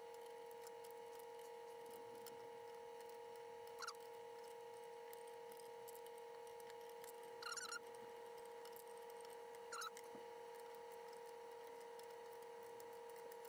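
Near silence: a steady faint electrical hum, with three brief faint squeaks and clicks a few seconds apart from hand work on a brake line fitting.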